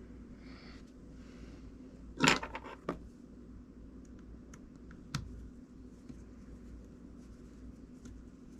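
Small metal parts of a fishing reel and tools clicking as they are handled during reassembly: a quick cluster of sharp clicks about two seconds in, one more click about five seconds in, and faint ticks between.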